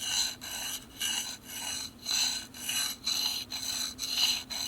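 Steel knife blade scraped back and forth over a small Fällkniven DC4 pocket sharpening stone, a gritty rasp in quick strokes about two a second, as a damaged, rolled edge is worked into a convex grind.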